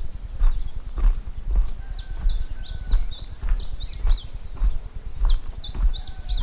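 Steady thumps of steps about twice a second, over an insect's steady high pulsing trill. From about two seconds in, a bird gives repeated short falling chirps.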